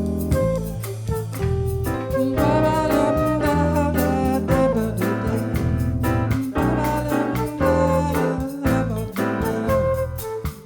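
Small jazz group playing a bossa nova tune, with bass and piano under a melodic lead line.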